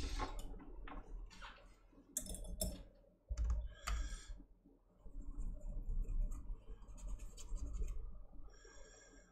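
Small tools and a metal reballing stencil handled on a workbench: irregular light clicks and taps in the first few seconds, then quieter with a few faint ticks.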